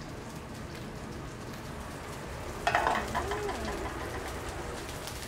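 Steady sizzle of food frying in a hot pan on the stove, with a short clink about three seconds in.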